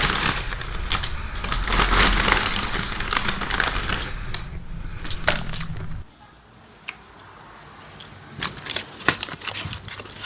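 Dense crunching and crackling noise, then about six seconds in an abrupt cut to a quieter stretch of scattered sharp clicks and cracks.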